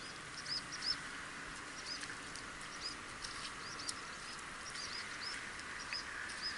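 Small birds chirping over the water: short, arched high notes, several a second, over a faint steady hiss.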